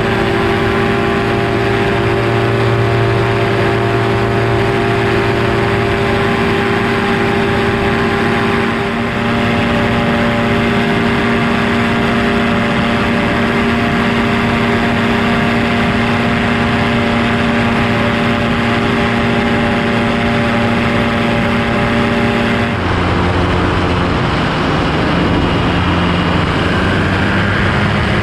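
Quicksilver ultralight's engine and propeller running steadily in flight, with wind rushing over the open airframe. About three quarters of the way through, the engine note drops suddenly to a lower pitch, as when power is reduced.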